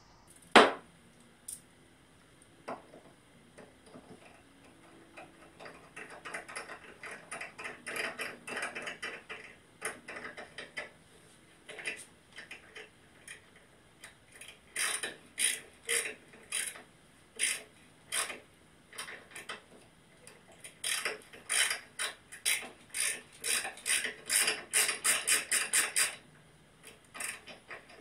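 Hand tap in a T-handle tap wrench, being worked by hand to cut threads into 3/4-inch aluminum plate: runs of short metallic clicks in bursts, quickening to about three or four a second near the end. A single sharp knock comes just after the start.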